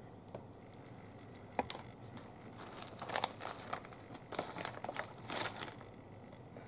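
A sharp click about one and a half seconds in, then irregular bursts of crinkling and rustling from materials being handled for a few seconds.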